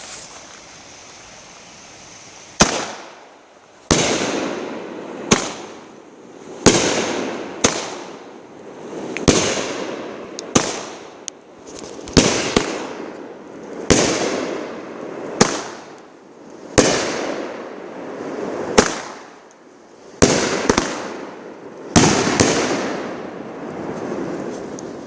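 A "Rifle Range Ahead" consumer fireworks cake firing, a sharp bang about every second and a half, each trailing off over about a second. The shots begin a couple of seconds in and sometimes come in quick pairs.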